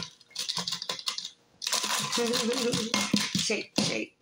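Water poured from a bottle into a frosted glass mug of ice chips, with the ice clicking and rattling at first, then a long splashing pour.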